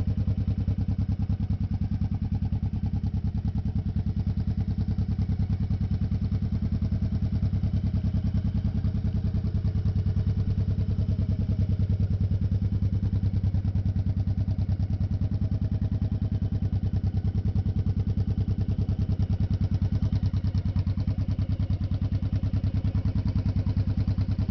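2007 Honda Shadow Sabre VT1100C2's 1100 cc V-twin running steadily at idle through an aftermarket exhaust.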